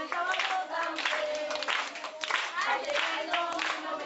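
A group of children singing together and clapping their hands.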